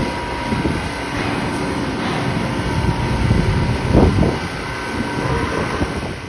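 Steady rumble of construction machinery during a concrete pour, with a faint steady whine above it and a louder swell of noise about four seconds in.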